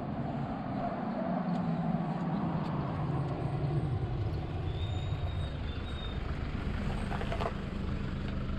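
Car driving along a road: a steady engine hum with tyre and road noise.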